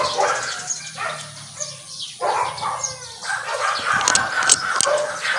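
Dogs barking in the kennel, with cloth rustling close to the microphone as the mask is adjusted.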